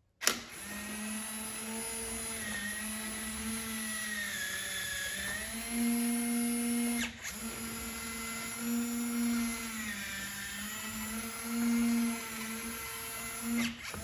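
Nuki Smart Lock 3.0's electric motor turning the door's lock cylinder during its calibration run: a steady motor whine that shifts in pitch. A sharp click marks the start, another comes about seven seconds in, and more clicks come near the end as the motor stops.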